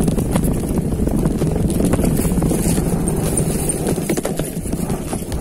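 Mountain bike rattling and clattering over a rough downhill trail: a rapid, uneven run of knocks that eases slightly near the end.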